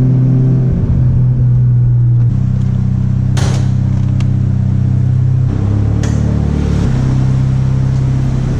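Mazda RX-7 FD's 13B rotary engine running at a steady speed, its note stepping to a new pitch a few times, with two sharp clicks partway through.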